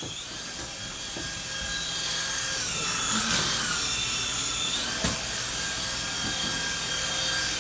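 Toy flying ball drone's small propeller motors whirring in a steady high whine that dips and recovers in pitch a few times as the throttle changes, with a brief knock about five seconds in.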